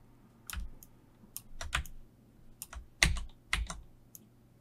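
Computer keyboard keys being pressed: about a dozen short, irregularly spaced clicks and taps.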